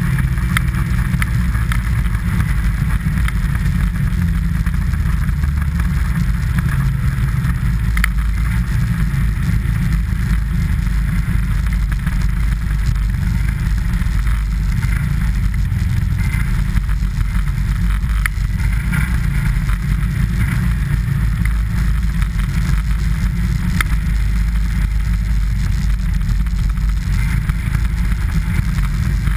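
Steady loud rumble and hiss of fast travel downhill over packed snow, with a few faint clicks.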